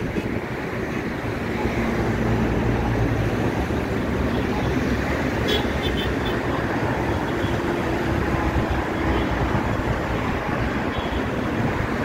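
Steady road traffic noise with a low engine hum from passing vehicles, heard over the wash of small waves on the shore.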